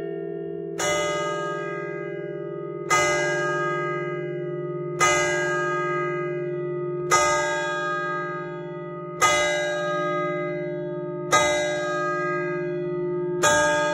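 A Perrin-Martin church bell cast in 1860 tolling, struck seven times at an even pace of about one stroke every two seconds. Each stroke rings out and fades, and a low hum carries on between strokes.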